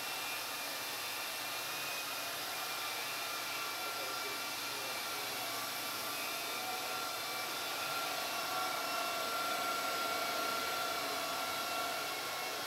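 Steady machine whir and hiss with a few faint steady whining tones, growing slightly louder about eight seconds in.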